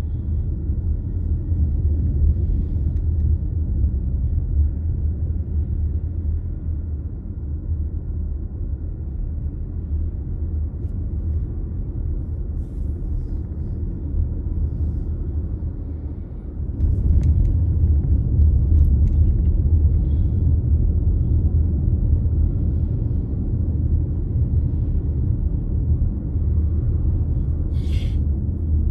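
Steady low rumble of a car on the move, road and engine noise. It dips briefly just past halfway, then runs louder. A short sharp click near the end.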